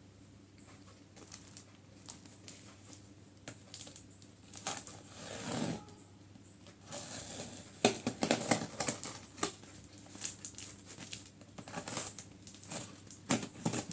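Packaging being handled and opened: irregular crinkling and rustling with short clicks and taps, getting busier from about four seconds in.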